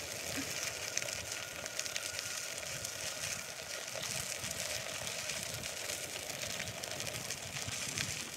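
Bicycle tyres rolling over a gravel trail: a continuous crackle and crunch of loose stones, with wind rumbling on the microphone underneath.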